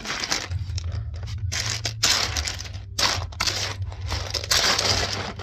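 Rustling and clattering in bursts as a pile of toy building-kit pieces is rummaged through to find the right ones.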